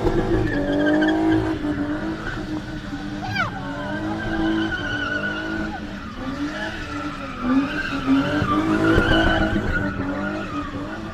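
BMW E30 325i being spun in tight circles: the straight-six is held at high revs, its note wavering up and down, while the rear tyres squeal and skid on the tar.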